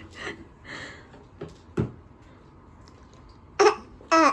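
Soft breathy noises and a single light tap, then a young child's short, high-pitched vocal sounds near the end.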